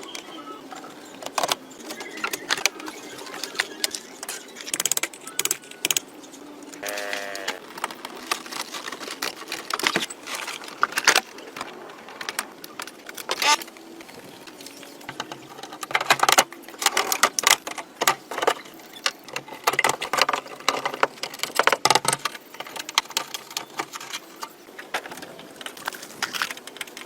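Irregular metallic clinks, knocks and rattles of hand work on an old car, with a brief squeak about seven seconds in.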